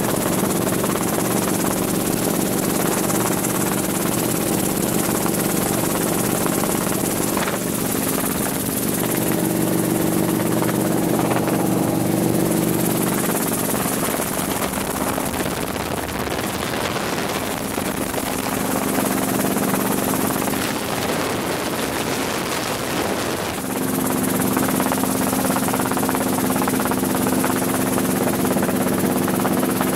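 Helicopter engine and rotor running steadily, heard from inside the cabin; the pitch pattern shifts about halfway through and again a few seconds before the end.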